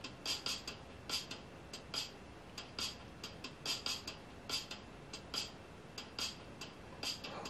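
Sharp, clock-like ticking from the drama's soundtrack, mostly in quick pairs a little under a second apart. The ticking is fairly faint over a light hiss.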